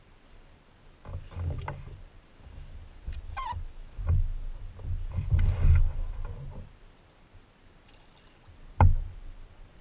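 Deep bumps and knocks on a small boat's hull as a landing net is handled and dipped into the water, with a sharp knock about nine seconds in.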